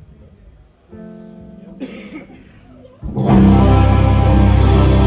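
Live band starting a song: a single electric guitar note or chord rings quietly about a second in, then the whole band comes in loud and full just after three seconds.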